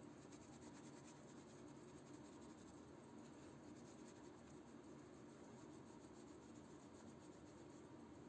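Near silence with faint, steady rubbing or scratching, like light hand work on a small object.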